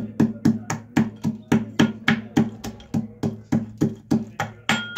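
Pestle pounding roasted almonds in a steel mortar, about four strokes a second. Each stroke is a sharp knock followed by a low metallic ringing from the mortar. The nuts are being coarsely crushed.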